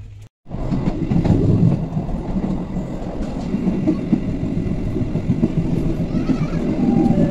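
Train rolling along the rails, heard from on board: a loud, steady rumble of wheels on track. It starts abruptly after a short silent gap at the very beginning.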